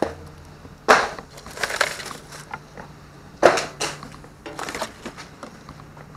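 Plastic trash bags and snack packaging rustling and crinkling as they are handled and rummaged through, in several separate bursts.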